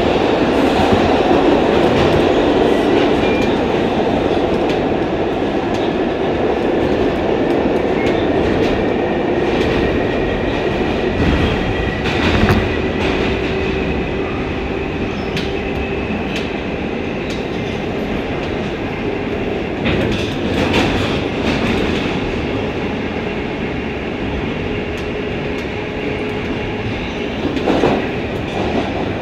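Kawasaki R142A subway car running through a tunnel, heard from inside: a steady rumble of wheels on rail with a faint steady whine and a few sharp rail clacks, running into a station near the end.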